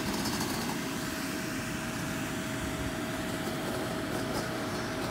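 A steady mechanical hum with one constant whine held throughout.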